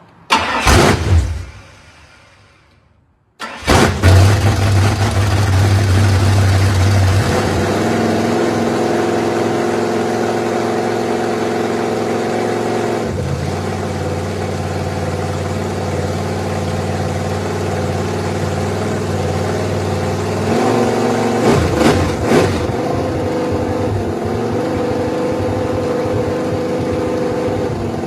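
Ford 351 Windsor V8 in a 1995 truck starting for the first time: a brief burst that dies away, then at about three and a half seconds the engine catches and runs at a fast idle. The idle settles lower around seven seconds, with a couple of short revs near twenty-two seconds; the engine is running with a huge vacuum leak.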